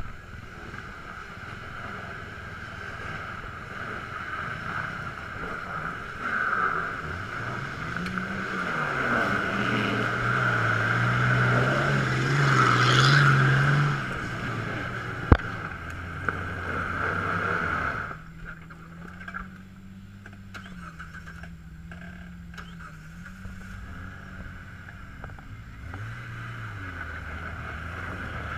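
Lifted Jeep Wrangler TJ engine revving and pulling under load as it crawls up a steep rocky hill, loudest in the middle, with a single sharp knock just after. A steady high-pitched drone in the background stops abruptly about 18 seconds in.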